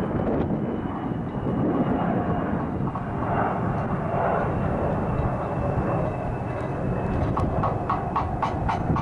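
Jet airliner engines running with a steady whine under a rushing noise of wind on the microphone. A rapid rattling clatter starts near the end.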